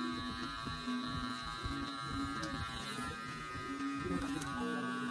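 Electric hair clippers buzzing steadily while cutting the hair at the nape of the neck.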